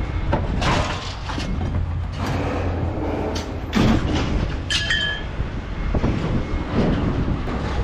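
A vehicle's steady low rumble with loose metal knocking and rattling, and a short metallic squeak about five seconds in.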